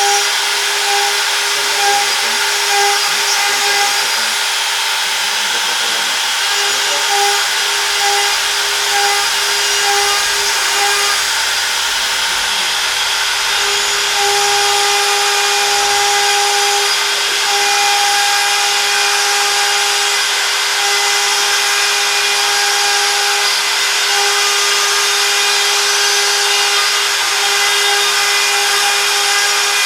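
CNC router spindle running steadily while cutting: a constant whine over a continuous cutting hiss.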